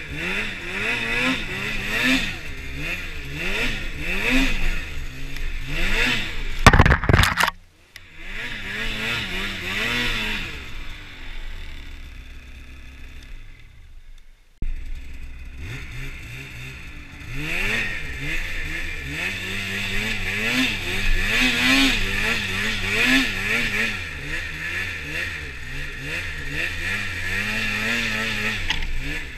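Polaris snowmobile engine being revved up and down again and again while riding through deep snow, its pitch rising and falling with each throttle blip. A loud burst of noise about seven seconds in briefly drowns the engine, which then goes quieter for a few seconds before coming back suddenly about halfway through.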